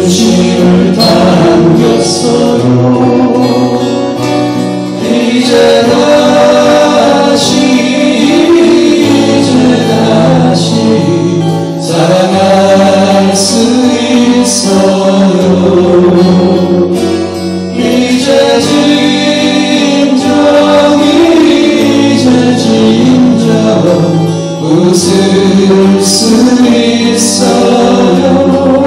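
Men singing a slow ballad in close vocal harmony, accompanied by strummed acoustic guitars.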